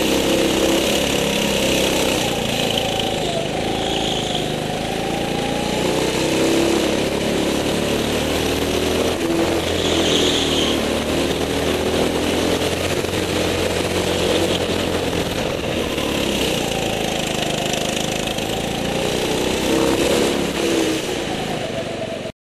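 Go-kart engine heard from on board, its pitch rising and falling over and over as the kart accelerates out of corners and lifts off for the next. The sound cuts off suddenly near the end.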